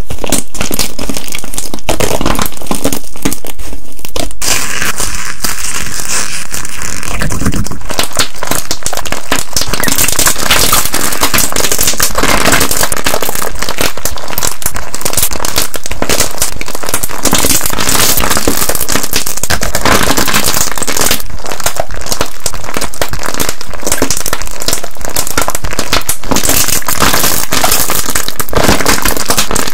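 Crunchy slime being squeezed and poked close to the microphone: dense, continuous crackling and popping, the texture changing a few seconds in.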